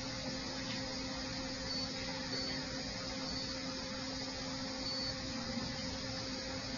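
Steady hiss with a low electrical hum, and four faint brief high beeps.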